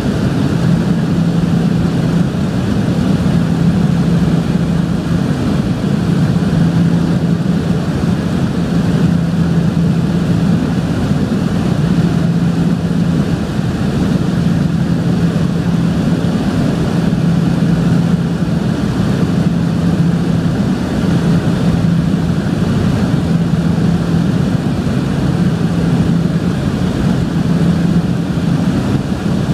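Cabin drone of a de Havilland Canada DHC-6-300 Twin Otter in cruise: its two Pratt & Whitney PT6A turboprop engines and propellers run steadily, with a low propeller hum that swells and fades every few seconds.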